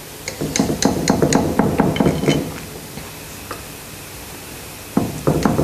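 A knife cutting through a baked malva pudding in its dish, a quick run of light clicks and knocks as the blade meets the dish. After a quieter stretch the knocking starts again, louder, about five seconds in.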